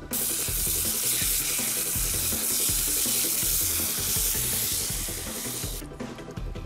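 Pieces of cuy (guinea pig) frying in hot oil: a loud, steady sizzle that starts abruptly and cuts off suddenly about six seconds in.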